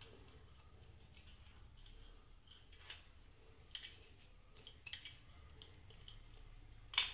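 Faint crackles of a knife cutting through crisp, ghee-fried bread slices, a few small scattered crunches, with a louder click near the end.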